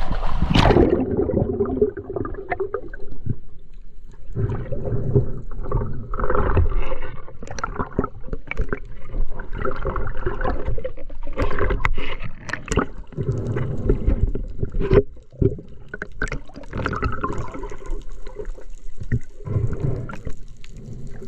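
Water splashing as a diver duck-dives, then muffled underwater rushing and bubbling that comes in irregular surges every second or two as he swims down.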